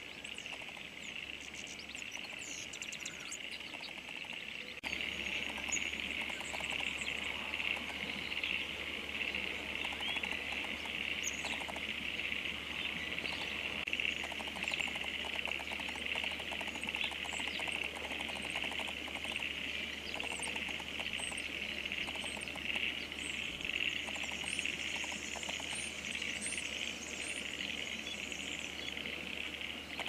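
Steady insect chorus with scattered faint, short high bird chirps over it. It gets a little louder about five seconds in.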